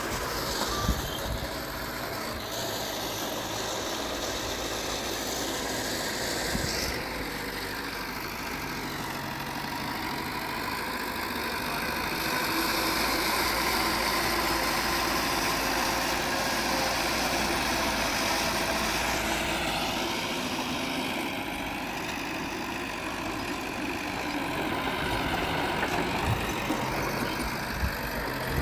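Heavy diesel earthmoving machinery running steadily, its engine noise swelling for several seconds midway, with a few short knocks about a second in and near the end.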